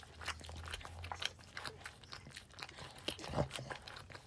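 Boston Terrier mother licking and chewing at a newborn puppy to clean it, a run of irregular wet smacks and clicks, with a louder bump about three seconds in.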